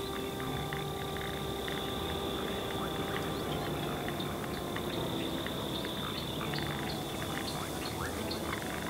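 Chorus of frogs calling over a steady high-pitched insect drone, with many short repeated calls throughout.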